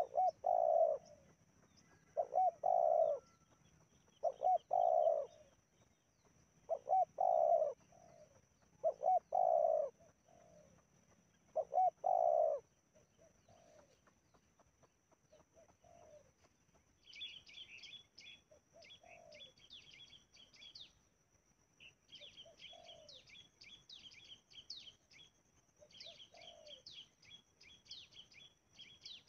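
Spotted dove cooing: loud coos about every two seconds for the first twelve seconds or so, then fainter coos every three seconds or so. From a little past halfway, small birds chirp in quick high twitters over it.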